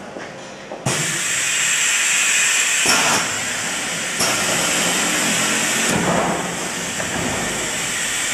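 Hot plate plastic welding machine running with a steady loud hiss that starts suddenly about a second in, with a couple of short knocks from its moving parts about three and four seconds in.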